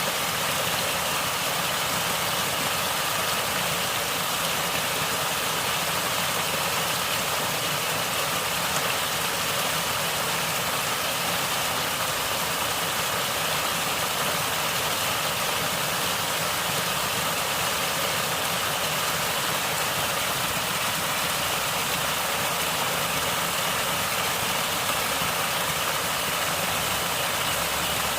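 Natural stream water flowing steadily, a continuous even rushing hiss with no separate splashes.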